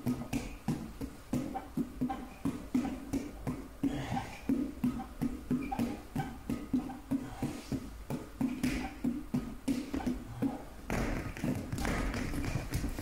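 Soft rubber balls tapping against hands and feet as they are juggled, in a quick, fairly even rhythm of several taps a second. Near the end the rhythm breaks up into a denser clatter as the balls fall onto the mat.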